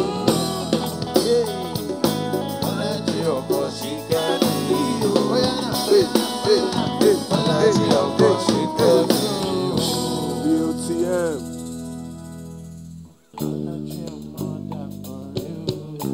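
Live band music with a gliding melody line over it, ending on a held chord that fades away. After a brief drop to near silence about thirteen seconds in, the band starts up again with guitar and bass.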